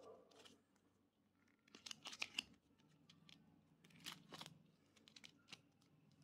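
Small plastic snack wrappers being handled and torn open: faint crinkling and tearing in two short bursts, about two seconds in and again around four seconds, with a few scattered crackles between.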